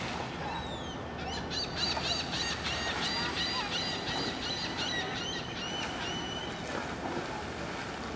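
A run of high, repeated chirping animal calls, about three a second, lasting a few seconds, with a couple of short falling whistles just before, over a steady outdoor background hiss.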